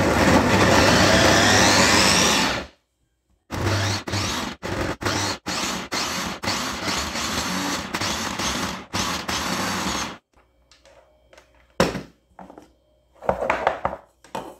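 Geepas electric mini chopper's motor and blades grinding ginger and garlic in oil into paste. It runs steadily for about two and a half seconds, stops, then runs in short pulses for about six seconds. Near the end come a few plastic knocks as the chopper bowl is handled and lifted off.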